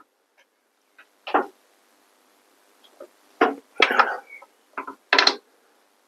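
Short scrapes and knocks of a steel wrench turning the bar nuts of a Sachs-Dolmar 115 chainsaw's side cover: one about a second in, then a cluster of several more from about halfway.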